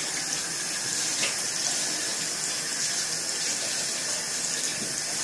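Kitchen tap running steadily into a sink, a constant hiss of water that is shut off right at the end.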